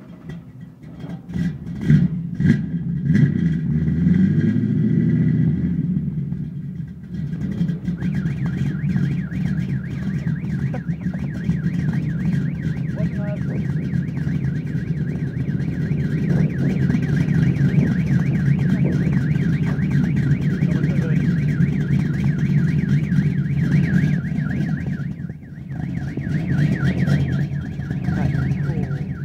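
A Chevy V8 swapped into an old Datsun Z, heard at its dual exhaust. It is blipped a few times at the start, then settles into a steady, nasty-sounding idle.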